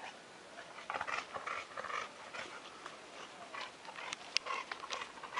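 A dog panting in short, quick noisy breaths, starting about a second in, with a few sharp clicks in the second half.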